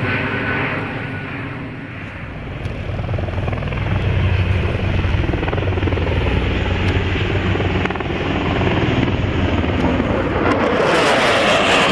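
Aircraft engine noise: a steady low drone, with a louder rushing swell building from about ten seconds in.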